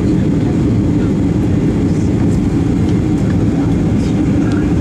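Steady roar of jet engines and rushing air inside an airliner's cabin as it descends on approach to land.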